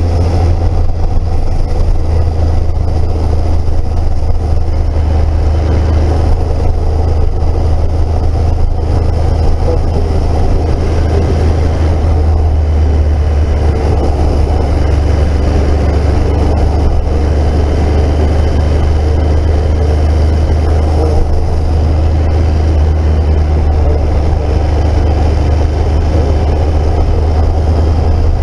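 Heavy wind noise rushing over the microphone of a moving motorcycle, with the Triumph Speed Triple's three-cylinder engine running underneath at a steady pace.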